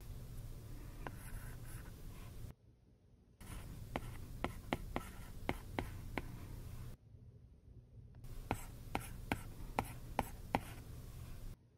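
Apple Pencil tip tapping and sliding on an iPad's glass screen while writing large Japanese characters by hand. It comes as two quick runs of sharp clicks, one about four seconds in and one near the end, with short silent breaks between.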